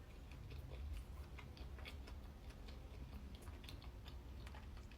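Soft, irregular mouth clicks of someone chewing a bite of cheese and pickle sandwich close to the microphone, over a low steady hum.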